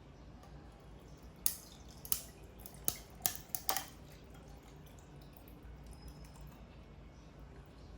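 Half a dozen light, sharp clicks and taps in quick succession over a faint steady low hum, then only the hum.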